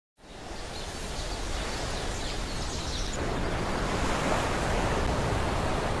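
Outdoor ambience of wind and sea surf: a steady rushing noise that fades in at the start and grows slightly after about three seconds, with faint high chirps in the first half.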